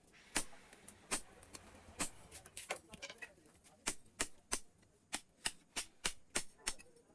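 Hammer striking steel on an anvil: about a dozen sharp, ringing blows at an uneven pace of roughly two a second.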